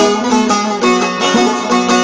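Instrumental break in a Turkish song: a plucked string instrument plays a quick run of melody notes over the accompaniment, with no singing.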